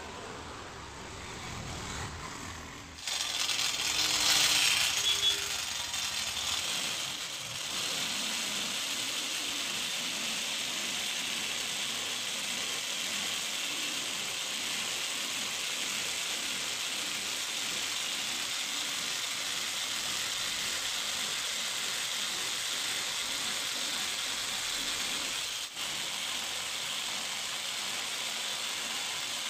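Electric jigsaw cutting a curved line through a wooden board, its blade running steadily from about three seconds in, with a momentary break near the end.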